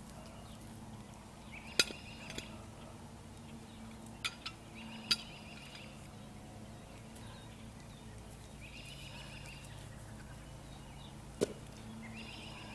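Several short bird calls, and a few sharp wooden knocks as cut firewood rounds are picked up and tossed onto a woodpile. The loudest knocks come about two seconds in and again near the end.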